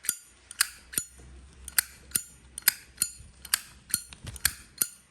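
Zippo lighter's hinged lid being flicked open and snapped shut over and over: sharp metallic clicks with a brief ring, about two a second. The lid's click sounds quite OK.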